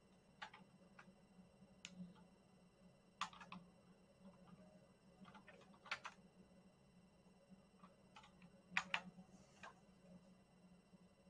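Near silence: faint room tone with a low steady hum and scattered light clicks and knocks at irregular intervals, the loudest a quick pair about nine seconds in.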